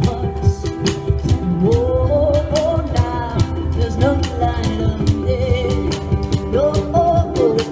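Live music: a solo voice singing over a strummed ukulele, with a steady rhythm of sharp strokes.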